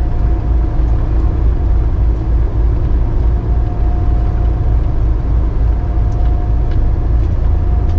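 Road and engine noise of a car cruising at freeway speed, heard from inside the cabin: a steady low rumble with a faint whine that comes and goes.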